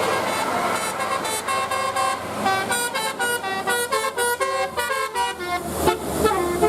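Telolet bus horn, a multi-tone musical horn, playing a fast melody of short notes with several pitches sounding together. It starts about a second in over steady vehicle noise and breaks off near the end with a sharp knock.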